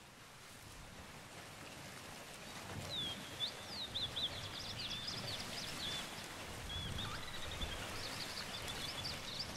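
Birdsong: rapid high chirps and trills starting about three seconds in, over a steady background hiss of natural ambience that fades in at the start.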